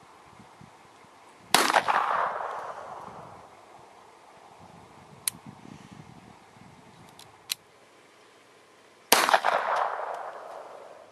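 .25 caliber pistol fired twice, about seven and a half seconds apart, each sharp report followed by an echo that dies away over a second or two. Two faint clicks fall between the shots.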